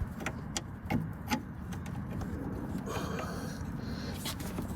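Light clicks and rubbing of parts being handled and fitted inside a car door: a few quick clicks in the first second and a half and another near the end, over a steady low hum.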